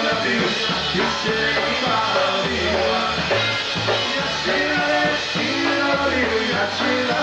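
Polka band playing live, a full band with a steady bass line under the melody.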